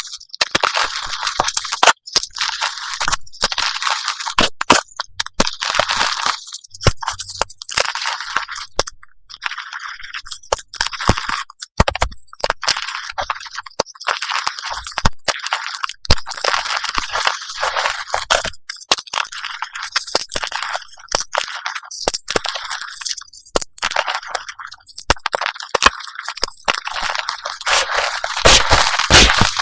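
Reformed gym chalk crushed and crumbling in rapid succession: dense crunching and crackling broken by many sharp cracks as the pressed pieces break apart.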